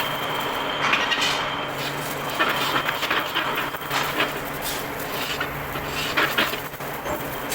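Metal parts clinking and knocking against each other in irregular strokes, over a steady low machine hum.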